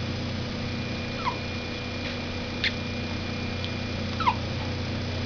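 A dog hiccuping: three short, high hiccup sounds about a second and a half apart, two of them dropping in pitch, with a fainter one between the last two.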